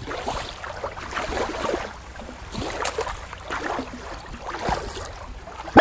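Shallow river water lapping and trickling against rock, with a low rumble of wind on the microphone. Right at the end, a brief loud rising whistle.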